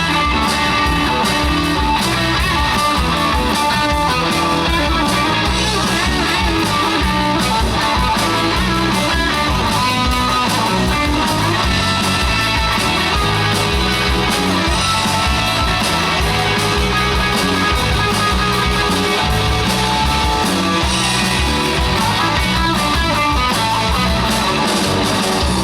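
Live rock-and-roll band playing an instrumental break, with electric guitar leading over a steady drum beat.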